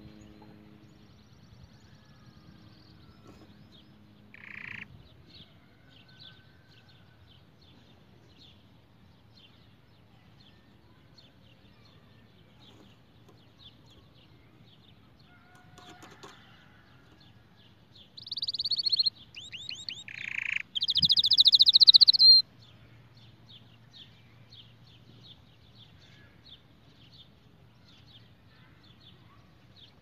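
White canary singing: soft, rapid high chirps throughout, with one short louder note early on. Past the middle it breaks into a loud run of trilled song phrases lasting about four seconds.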